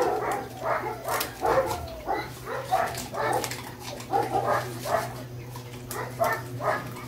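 A pack of German Shepherds crowded over food bowls, barking and yipping in many short overlapping calls, several a second, over a steady low hum.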